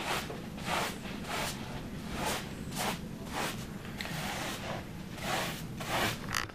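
Broom sweeping a floor: a run of short, brisk swishes, roughly two a second and a little uneven.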